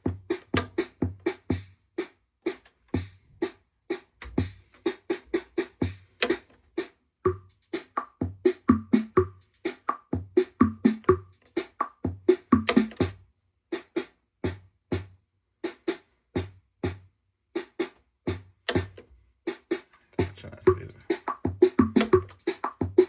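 Casiotone 401 keyboard's built-in rhythm section playing preset drum-machine beats: short, sharp electronic drum hits in a repeating pattern, breaking off briefly a few times as the pattern changes.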